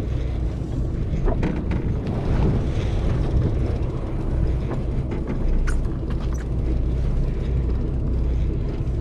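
Fishing boat's engine running with a steady low drone, with a few light clicks and knocks on board.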